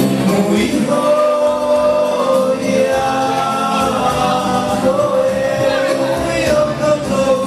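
A group of voices singing a slow song in harmony, with long held notes.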